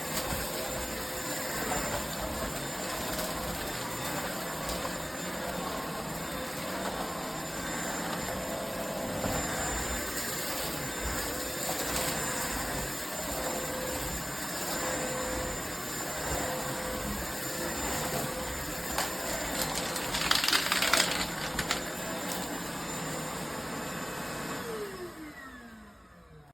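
Cordless stick vacuum running steadily, with a brief louder crackling stretch about 20 seconds in as debris is picked up. Near the end it is switched off and the motor's whine falls in pitch as it spins down.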